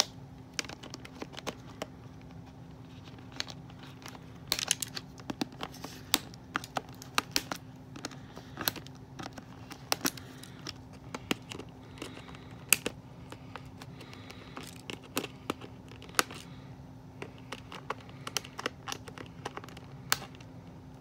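Clear plastic blister packaging crinkling and clicking as it is handled and snipped with small nippers, with irregular sharp clicks throughout.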